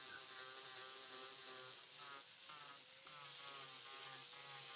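DeWalt angle grinder with a coarse flap sanding disc running against a cured fiberglass and resin patch, a steady whine that wavers slightly in pitch as it grinds, roughing up the surface so the next layer of mat will bond.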